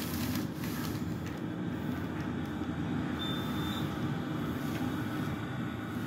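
Glass-walled elevator car travelling down its shaft: a steady low rumble of the ride. A short high beep sounds about three seconds in.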